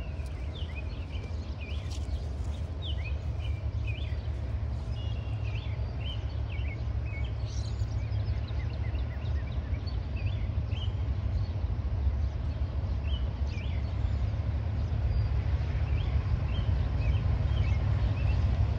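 Small birds chirping repeatedly over a steady low rumble that slowly grows louder: a diesel freight train drawing near. The chirping is thickest in the first half.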